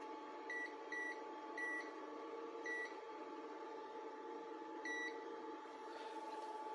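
Five short, high electronic beeps, unevenly spaced, over a steady electrical hum from an inverter-charger running while it charges a battery bank.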